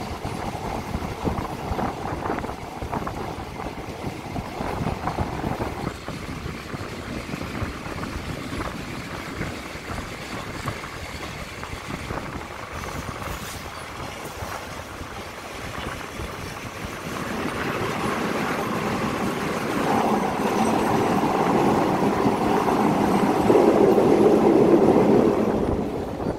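Passenger train running along the rails, heard from an open carriage window: steady wheel-and-rail noise that grows louder over the last third as the train rolls onto a steel truss bridge.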